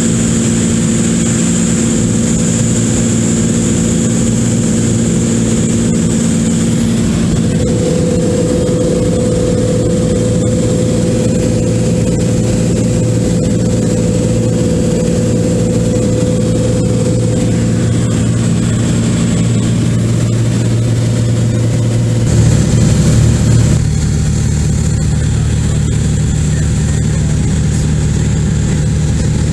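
Cessna 172's piston engine and propeller heard from inside the cabin in flight: a loud, steady drone whose pitch shifts about a quarter of the way in and again near the end.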